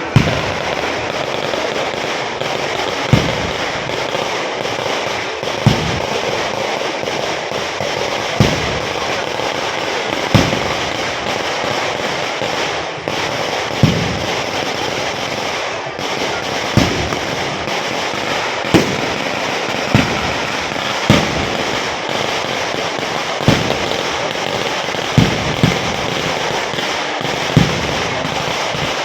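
Firecrackers going off: a dense, continuous crackling with sharp, louder bangs every two or three seconds.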